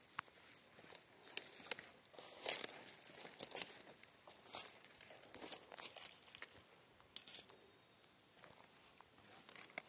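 Faint, irregular rustling and crackling of cabbage leaves and dry mulch underfoot as someone walks between the plants.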